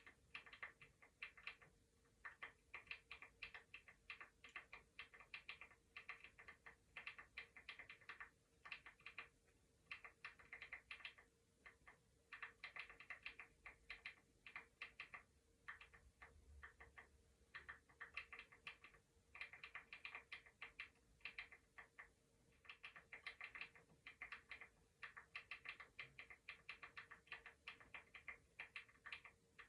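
Computer keyboard typing: quiet bursts of rapid key clicks lasting a second or two, broken by short pauses, over a faint steady hum.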